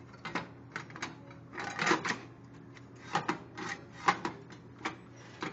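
Metal panels of a Duke broiler knocking and rattling as they are worked into their notches: an irregular run of sharp metallic clicks, clanks and short scrapes.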